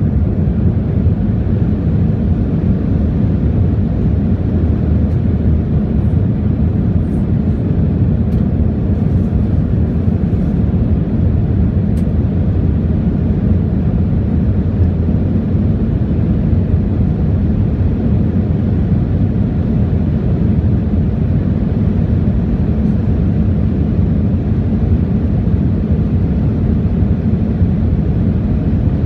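Airliner cabin noise during the climb after takeoff: a steady low rumble of jet engines and rushing air, heard from a window seat near the wing. A few faint ticks sound in the first half.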